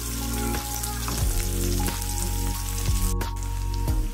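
Chopped onion sizzling as it fries in hot mustard oil with cumin, mustard seeds and curry leaves, stirred in a nonstick pan with a spatula. Background music with held notes plays over it.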